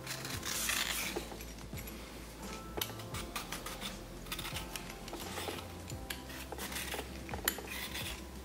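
Vegetable peeler shaving the skin off a raw sweet potato: repeated short rasping scrapes of the blade along the tuber, with light clicks and knocks of the peeler and potato. The strongest scrape comes about half a second to a second in.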